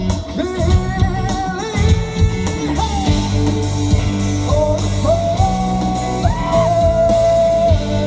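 Live rock band playing loud through a stage PA, with drums, bass and electric guitars under a lead line of long held notes that bend upward in pitch. It is heard from the audience.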